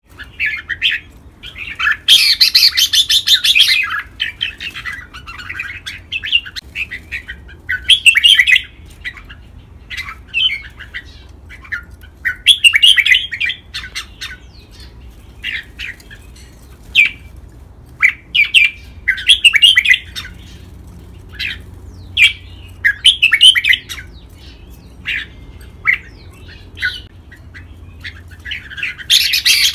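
Red-whiskered bulbul singing: short, quick whistled phrases every second or two, with a few longer, louder bursts.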